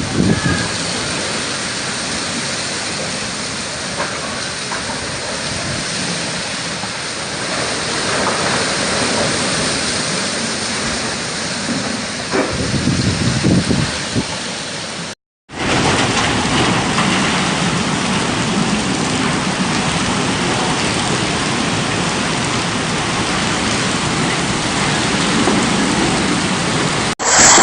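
Heavy rain in a windstorm: a steady, dense hiss of downpour and wind. It cuts out completely for a moment just past halfway, then resumes.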